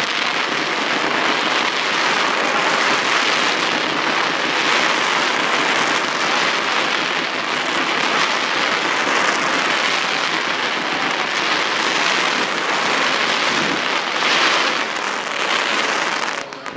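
Fireworks crackling and hissing in a dense continuous rain-like crackle, which cuts off suddenly near the end.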